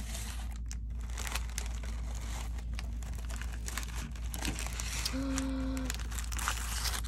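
Clear plastic treat bag crinkling and rustling continuously as it is handled and turned over.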